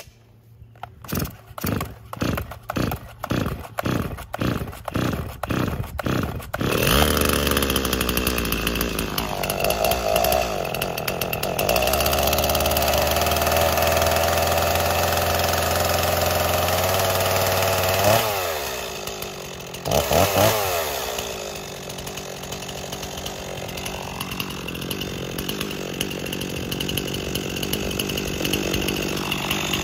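Stihl MS260 two-stroke chainsaw being pull-started. It is cranked over with a run of quick knocks about twice a second, then fires about seven seconds in and revs up to a high fast run. Near the middle it drops back and is revved briefly once more, then settles to a steady idle.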